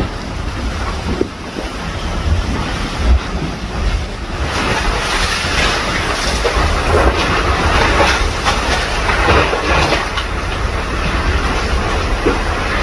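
Strong wind buffeting the microphone over a rough sea, with waves and water splashing around a small boat: a steady, loud rushing noise with a heavy low rumble.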